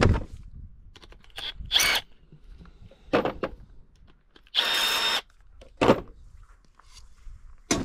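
A cordless drill-driver runs in one short steady burst of about half a second near the middle, undoing the fixing bolt of an outboard motor's sacrificial anode. Sharp clicks and knocks from handling the tool and parts come before and after it.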